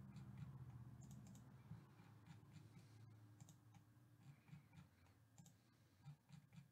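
A few faint computer mouse clicks, spaced out over a low steady hum.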